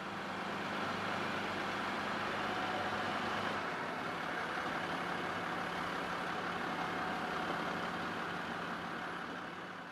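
Utility bucket truck's engine idling steadily, fading out near the end.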